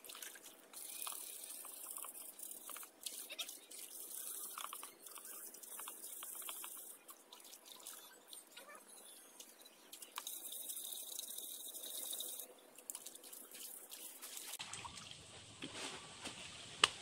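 Faint splashing and trickling of water as a clay cooking pot is dipped and rinsed by hand, with a single sharp knock near the end.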